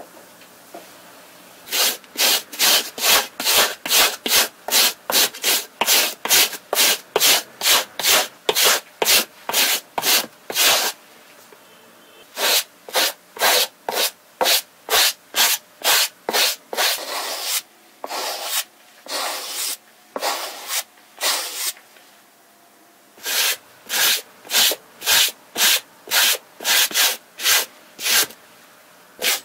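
Suede brush scrubbing back and forth over a Converse Chuck Taylor's suede upper in quick, even strokes, about three a second, with two short pauses and a few longer strokes just before the second pause.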